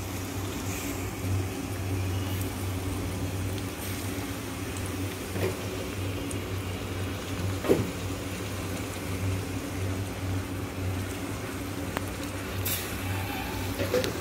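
Tomato paste cooking in oil in a pan, with a steady low hum underneath and a few soft scrapes of a steel spoon.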